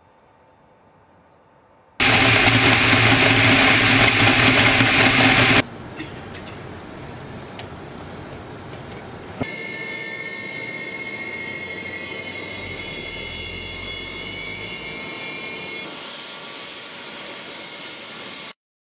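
Military aircraft engine noise in abrupt segments: a loud rushing roar of about three and a half seconds, then a quieter steady jet-engine whine with several high steady tones from Su-30 fighter jets, cutting off suddenly near the end.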